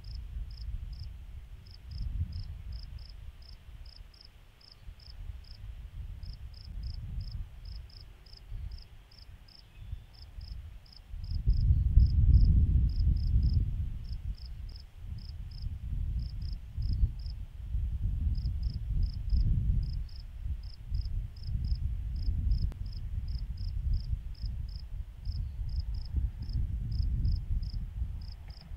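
Insect chirping in short high pulses, about four a second in small groups, over an uneven low rumble that swells and fades and is loudest about twelve seconds in.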